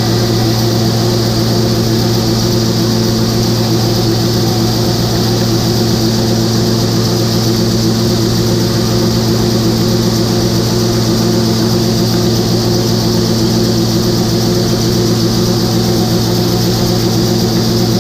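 Large engine running steadily at constant speed: an even low drone with a hiss above it.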